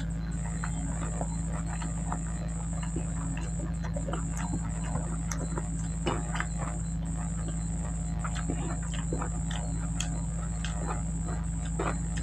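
Close-up eating sounds of rice and vegetable curry eaten by hand: wet chewing and mouth smacks with many small clicks, and squelches as fingers mix and scoop the rice. A steady high-pitched whine and a low hum run underneath.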